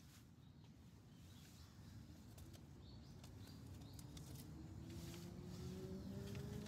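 Faint outdoor background with a machine-like whine that slowly rises in pitch and grows louder, and a few faint bird chirps.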